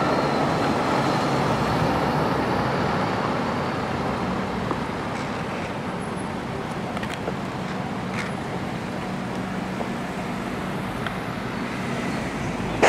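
Fire trucks' engines running as the apparatus drives past and slows in the street, over steady traffic noise. A short thump right at the end.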